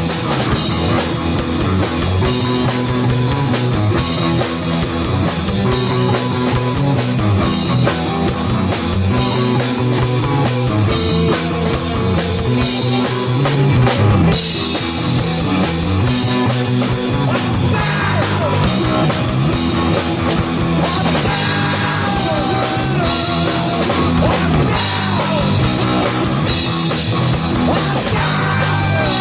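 Live rock band playing a passage of a song without lyrics, with drum kit and guitars. In the second half a lead line plays bending notes.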